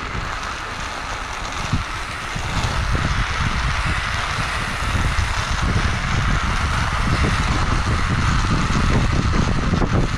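Wind rushing over the microphone with a steady rumble of tyres on asphalt, from a fast downhill roll. It grows a little louder about two and a half seconds in.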